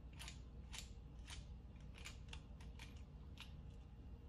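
Faint, irregular metallic clicks, about two a second, as a small screwdriver turns the hidden side-plate screw out of a Taurus Model 80 revolver's steel frame.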